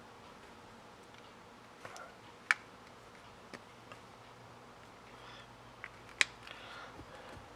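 A handful of sharp, isolated clicks and light taps from handling a white felt marker pen at the truck's door hinge. Two of the clicks are much louder than the rest.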